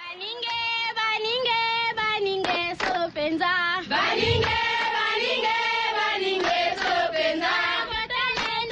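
Tribal-style music: a high voice sings a chant-like melody of long, wavering held notes over short percussive hits.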